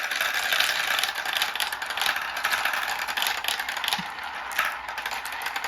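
Many marbles rolling and clattering through a marble run: a steady rattle dense with small clicks.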